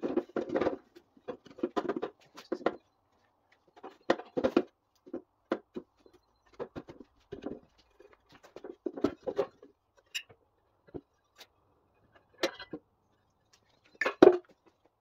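Hands working at the metal fan cover of a Simar two-wheel tractor's engine, taking it off: irregular knocks, clicks and scrapes at uneven spacing, with a sharp knock near the end.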